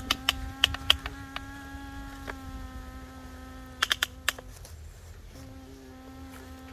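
Radio-controlled model excavator's small electric motor humming steadily, with sharp clicks early on and a quick run of clicks about four seconds in. The hum cuts out about four and a half seconds in and starts again a second later.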